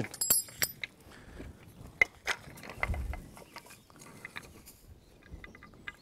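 Handmade wooden double pulley blocks being picked up and handled: scattered wooden knocks and clicks, with a brief clink near the start and a short run of small quick clicks near the end.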